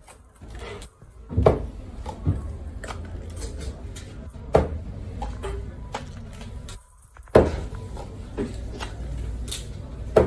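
Knocks and light clatter of a metal pitcher and a drinking glass at a shop counter while a thick nut-milk drink is poured, four sharper knocks about three seconds apart, over a low steady hum.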